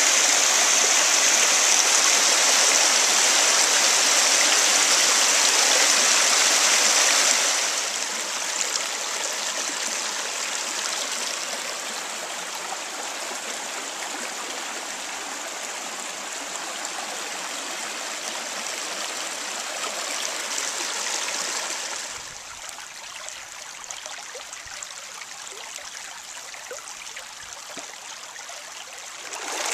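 Shallow creek water running and rippling over flat rocks, a steady rush that is loudest for the first seven seconds or so, then softer, and softer again about three quarters of the way through before it swells back up at the very end.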